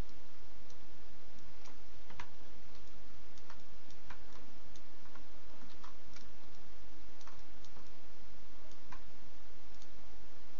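Faint, irregular clicks of a computer mouse and keyboard being worked, over a steady low hum and hiss.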